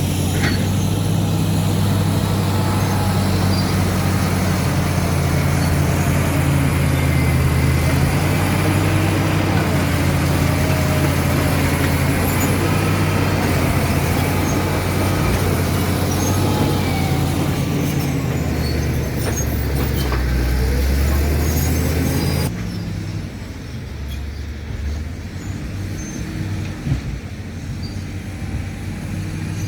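Caterpillar D7 crawler bulldozer working: its diesel engine running hard under load, with squeals and clanks from the steel tracks. About two-thirds of the way through the sound drops suddenly to a much lower level.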